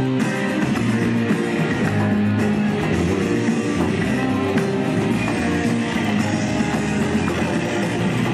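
Live band music with an electric guitar playing, loud and continuous.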